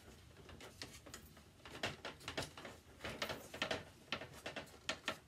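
Hard plastic dollhouse pieces clicking and knocking together as they are handled and fitted into place, a quick irregular run of light clicks and taps.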